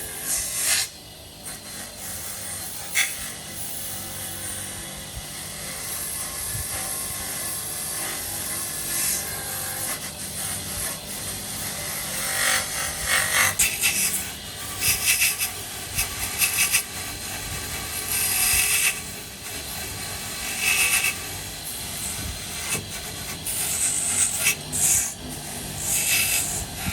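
Irregular strokes of scraping and rubbing on wood, as of hand work on a wooden slab, coming in short bursts over a steady background.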